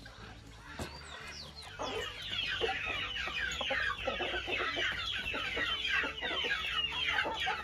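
Flock of chickens and chicks calling all at once, a dense chorus of short, high, falling peeps that swells about two seconds in.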